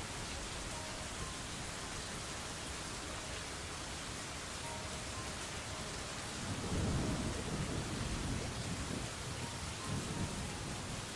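Steady rain hiss with a low rumble of thunder. The rumble rolls in about six and a half seconds in and dies away over a few seconds, and a smaller rumble comes near the end.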